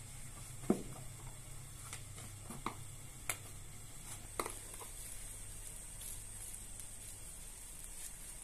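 Hands kneading bread dough in a plastic basin: quiet squishing with a few short knocks, the loudest about a second in, over a low steady hum.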